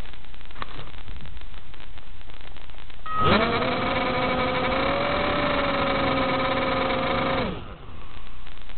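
Steady hiss of static on an analog FPV video link, joined about three seconds in by a buzzing whine. The whine's pitch wavers slightly and it cuts off about four seconds later.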